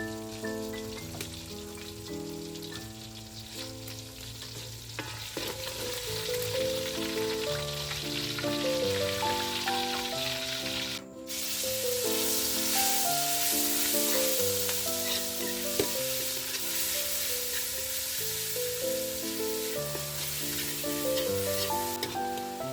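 Food sizzling in hot oil, louder from about halfway through, under background instrumental music with a plucked-sounding melody.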